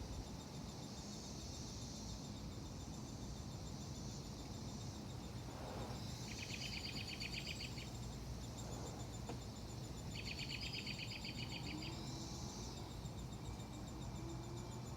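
Summer outdoor ambience: a steady high insect buzz throughout, with birds chirping in two rapid trills, about six and ten seconds in, over a low steady rumble.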